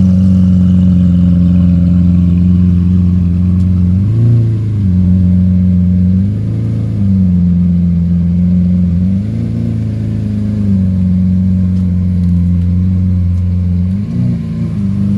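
Supercar engine idling steadily after a cold start, with four brief rises in revs, at about four, six and a half, nine and a half and fourteen seconds in.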